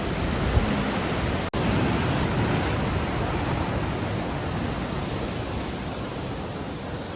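Ocean surf rushing steadily, with wind buffeting the microphone; the sound drops out for an instant about a second and a half in.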